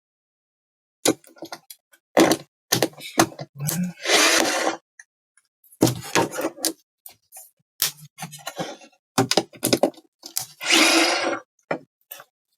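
Repeated knocks and clatter of tools and parts being handled on a workbench, with two longer rasping bursts of under a second, about four and about eleven seconds in.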